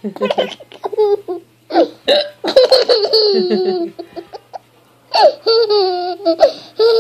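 A toddler laughing hard in repeated bursts, each long laugh falling in pitch, with a woman's short, sharp hiccups in between.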